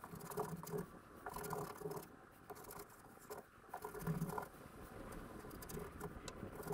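Paintbrush spreading contact adhesive across a board panel: faint, irregular scratching brush strokes.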